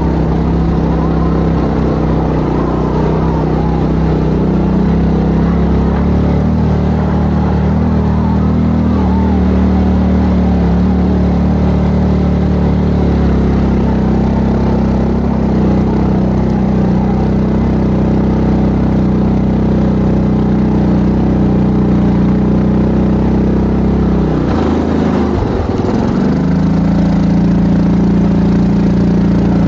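ATV engine running steadily under way. Near the end the engine note drops briefly and then rises again as the throttle is eased off and reopened.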